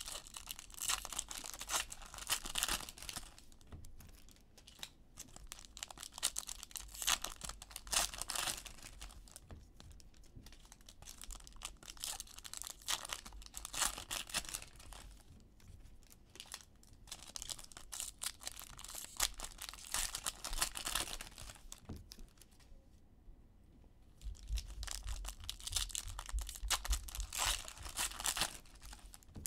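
Foil trading-card packs being torn open and crinkled by hand, in repeated bursts of crackling wrapper every few seconds.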